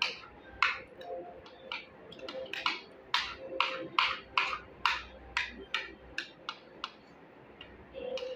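Metal spoons clicking and scraping against plates in quick, irregular strokes as rice is scooped up and eaten.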